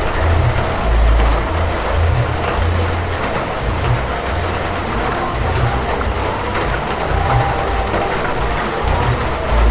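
Heavy rain falling as a dense, steady hiss, with an uneven low rumble underneath that swells and fades every second or so.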